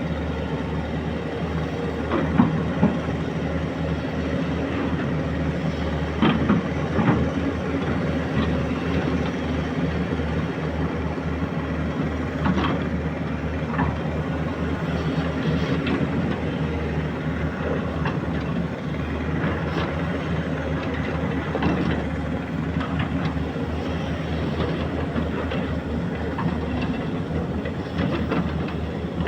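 Excavator's diesel engine running steadily, with occasional sharp metal clanks and knocks from the machine at work.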